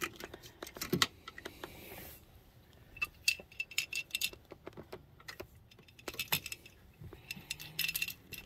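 Clicks, taps and small clinks of hard plastic being handled: the cap coming off a boat engine's coolant reservoir and a coolant freeze-point tester being put into it. There is a short hiss about two seconds in.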